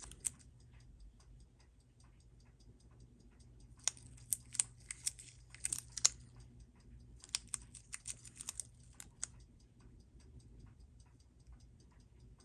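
Small metal watchmaker's tools clicking and tapping against the opened watch on the bench, in short clusters of sharp clicks about four seconds in and again around eight seconds. A faint, steady fast ticking runs underneath.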